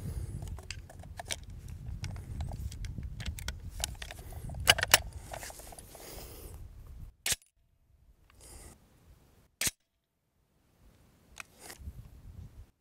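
Sharp metallic clicks and clacks of a Cobray Terminator 12-gauge shotgun being handled and worked between shots, over a low wind rumble. The loudest clicks come about five seconds in; after about seven seconds only a few single clicks break the quiet.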